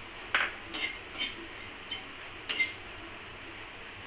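Steel spoon stirring poppy seeds in melted ghee in a metal kadhai: a handful of irregular clinks and scrapes of spoon on pan, a few with a short metallic ring.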